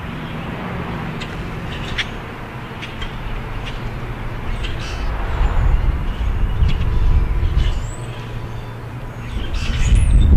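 Low rumble of passing road traffic that swells twice, about halfway through and again near the end, with scattered short bird chips and a couple of high, upward-sweeping whistles from blackbirds.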